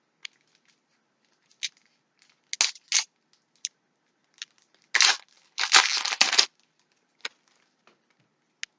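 Magic: The Gathering booster pack's foil wrapper crinkling in the hands and being torn open, with scattered crackles and a longer, louder tearing stretch around five to six and a half seconds in.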